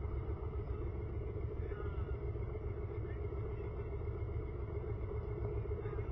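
Honda VT1300 cruiser's V-twin engine idling at a standstill: a steady low rumble with no revving.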